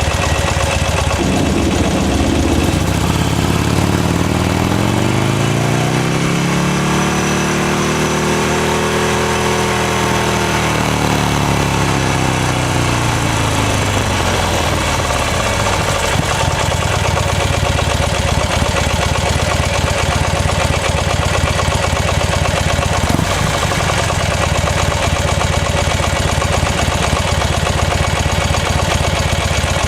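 Buell XB9S Lightning's air-cooled V-twin engine running: its pitch rises smoothly for several seconds, then falls back about halfway through and settles into a steady low running, like an idle.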